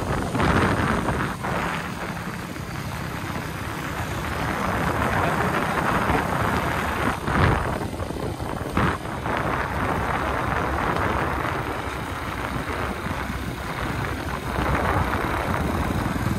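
Motorcycle engine running while riding, mixed with wind buffeting the microphone. Two short thumps come about seven and nine seconds in.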